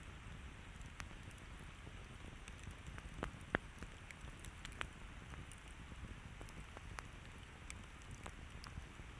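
Campfire crackling: scattered sharp pops and ticks of burning wood over a steady low rumble of the flames, with one louder pop about three and a half seconds in.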